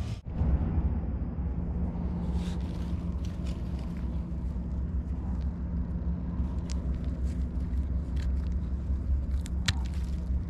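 A steady low rumble, with scattered faint scrapes and clicks of fingers digging a white mushroom out of the soil and dry leaf litter.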